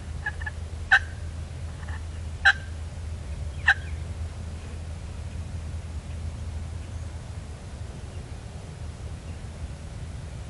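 Wild turkey calling: three short, sharp calls about a second and a half apart, starting about a second in, then nothing more.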